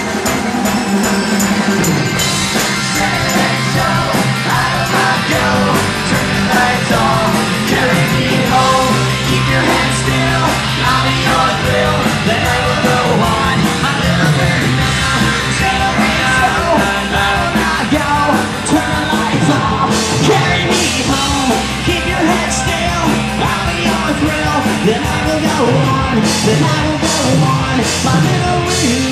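Live rock band playing loudly, with electric guitar and drums and the lead singer singing into the microphone.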